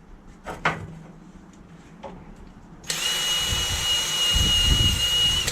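A power tool starts suddenly about three seconds in and runs steadily with a high whine, after a single knock near the start.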